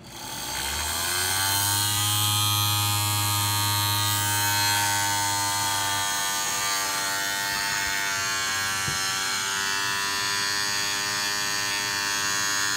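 Horseshoe-magnet electric motor of a 1950s Japanese battery-powered toy boat running, a steady buzzing whir. It spins up over the first second after being switched on, and the lowest hum drops away about six seconds in.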